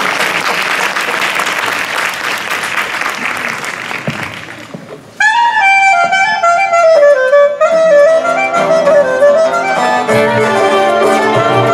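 Audience applause that dies away over about five seconds, then a live Greek folk band abruptly strikes up a Thracian dance tune: a high, ornamented melody line with lower accompanying instruments coming in underneath.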